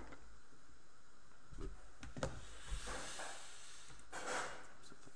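A few computer mouse clicks with soft rustling noises, over a steady low hiss.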